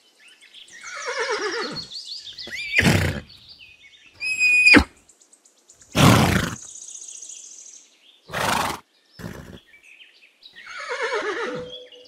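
Horse whinnying: a call that falls steeply in pitch about a second in, and another near the end, with several short breathy blasts and a brief high squeal between them.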